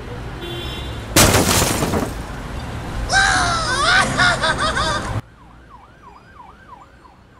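Intro sound effects: a loud noisy whoosh about a second in, then a high warbling sound in quick rising-and-falling glides. It cuts off abruptly about five seconds in, and fainter, quicker up-and-down glides follow.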